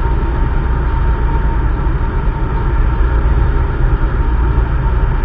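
Cessna 152's four-cylinder Lycoming engine and propeller droning steadily in flight, heard inside the cockpit, with a heavy low rumble and faint steady tones above it.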